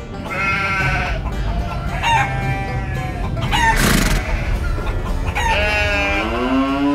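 A rooster crowing repeatedly, each crow a long pitched call that falls away at the end, with a short rushing noise about four seconds in and low music underneath.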